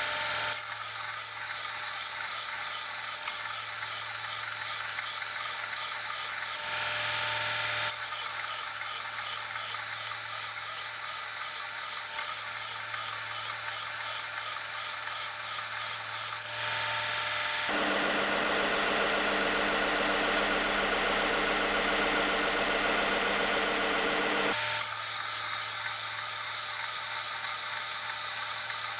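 Belt sander running with a steady motor hum while a rusty hammer head is pressed against the moving belt, grinding its faces flat. The grinding grows louder and harsher for several seconds past the middle.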